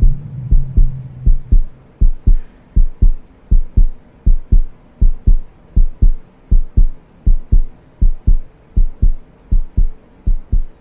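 Heartbeat sound effect: steady low double thumps repeating evenly throughout, with a low hum fading out in the first second or two.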